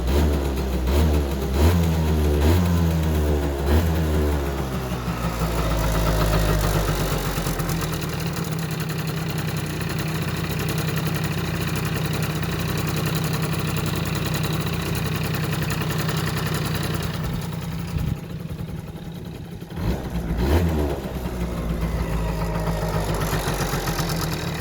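Yamaha Jog scooter engine running: a few short revs in the first seconds, then a steady idle. About three quarters of the way through the sound sags for a couple of seconds, then comes back with a quick blip and settles to idle again.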